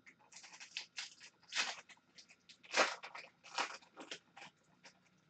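A hockey card pack's wrapper being torn open and crinkled by hand: a string of crackling rustles, with the loudest tears about one and a half, three and three and a half seconds in.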